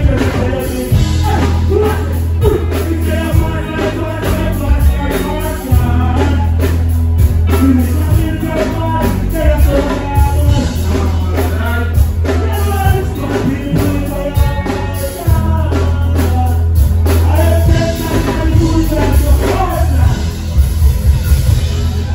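Dancehall music played loud over a concert sound system: a deep, heavy bass line under a singer's voice, the bass dropping out briefly now and then.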